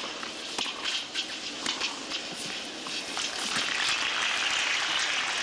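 Tennis rally on a clay court: sharp racket hits and ball bounces every half second or so, then crowd applause rising about three seconds in and carrying on.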